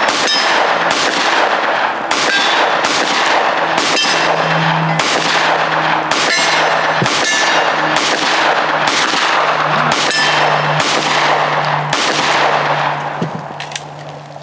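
Gunshots fired at a steady pace of about one a second, a dozen or so in all, each trailing off in a long echo; the firing stops near the end.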